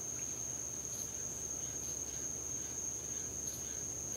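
Crickets trilling at night: one steady, high-pitched trill with fainter scattered chirps, over a low background rumble.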